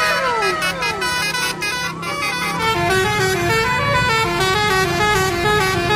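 Basuri telolet bus horn playing a fast tune of stepped notes, with falling pitch slides in the first second, over a low steady hum that stops about halfway through.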